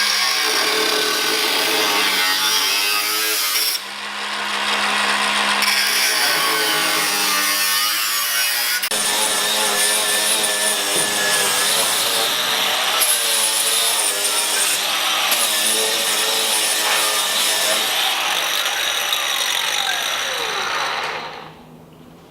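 Power tool with a blade cutting the sheet-metal body panel, running steadily with its pitch sagging and recovering as it is loaded; it stops about 21 seconds in.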